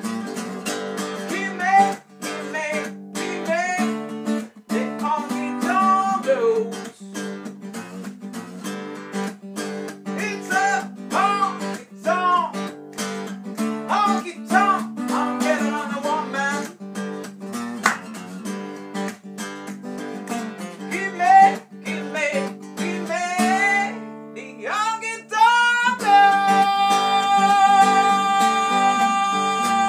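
Acoustic guitar strummed steadily while a voice sings and vocalizes over it in sliding, bending phrases. Near the end the voice climbs and holds one long wavering note.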